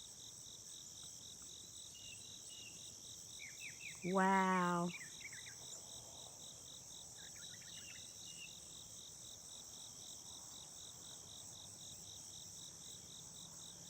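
Early-morning insect chorus of crickets: a steady, evenly pulsing high trill with a continuous higher hum above it. A few short, faint bird chirps come through it.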